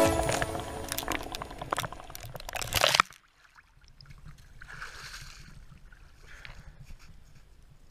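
Icy water sloshing and gurgling in a hole cut in lake ice around a person's bare legs, heard with the microphone dipping underwater. It cuts off suddenly about three seconds in, leaving a faint hiss.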